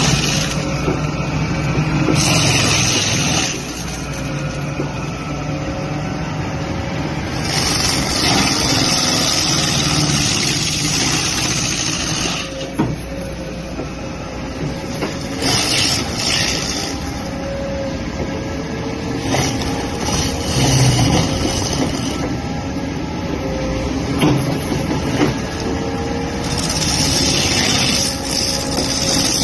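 Excavator fitted with a Monde mulcher head working, its diesel engine running steadily, with four stretches of louder, hissing noise over the top of it.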